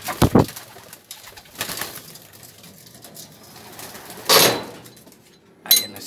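Racing pigeons cooing in a small loft. There is a loud thump just after the start and a loud rustling burst about four seconds in.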